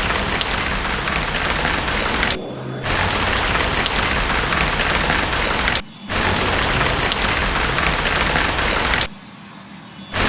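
Heavy rain pouring with a deep rumble of thunder underneath. It cuts out abruptly three times, briefly about two and a half seconds in and near six seconds, and for about a second near the end.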